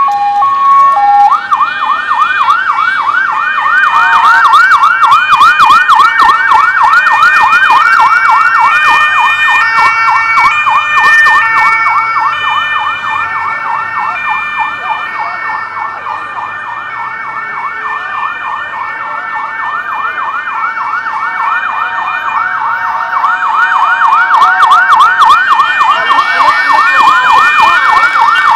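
Electronic siren of a motorcade escort vehicle: a two-tone hi-lo switches about a second in to a fast yelp that runs on, loud, easing a little in the middle and swelling again later, and falls in pitch near the end.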